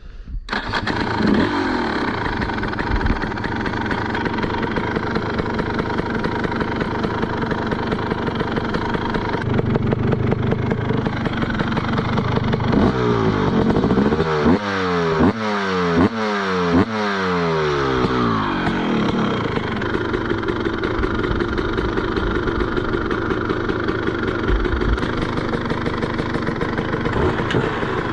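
TM SMR 300 two-stroke single-cylinder supermoto engine with a DBR exhaust, running at idle. In the middle it is blipped about half a dozen times in quick succession, each rev rising sharply in pitch, before it settles back to idle.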